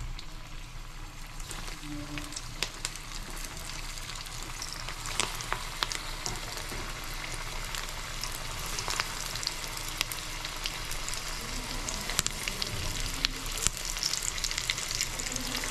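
Chhana (paneer) koftas deep-frying in hot mustard oil mixed with ghee in a steel kadai: a steady sizzle with frequent sharp pops and crackles. The sizzle grows a little louder as more balls are slipped into the oil.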